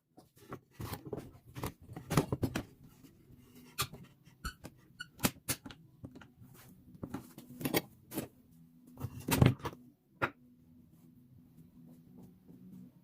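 Irregular clicks and knocks of hard objects being handled, with the loudest knocks about two seconds in and about nine seconds in, over a faint steady low hum.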